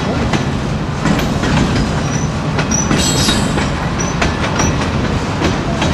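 Loaded freight flatcars carrying steel pipe rolling past, with a steady rumble, wheels clicking over rail joints, and a few short high squeals from the wheels, the strongest about three seconds in.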